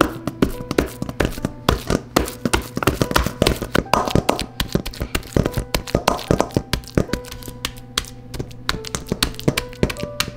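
Nylon potato masher mashing ripe bananas in a stainless steel bowl: a quick, uneven run of taps and soft thunks as the masher head strikes the fruit and the metal bottom of the bowl.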